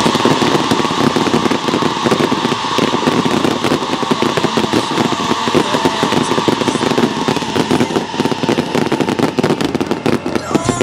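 Fireworks crackling rapidly: a dense, continuous run of small bangs and pops.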